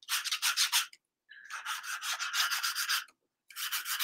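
Pencil scratching on sketchbook paper in quick back-and-forth sketching strokes. The strokes come in three runs with short pauses between them.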